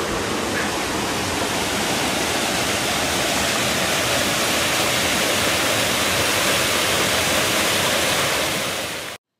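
Small river waterfall: water rushing steadily over a rock ledge, fading and then cutting off near the end.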